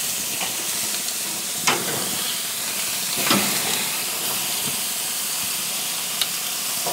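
Ham steaks sizzling on a very hot infrared grill, a steady hiss with a few short sharp pops.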